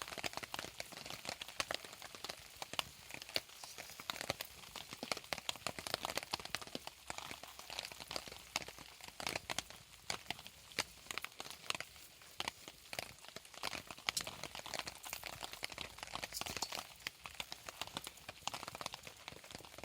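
Wood campfire crackling: dense, irregular sharp snaps and pops of varying loudness over a steady hiss.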